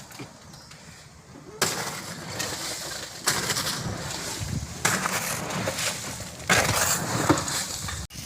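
Load of sand being unloaded: a gritty, crunching rush of sand that starts abruptly about a second and a half in and comes in several stretches, each starting suddenly.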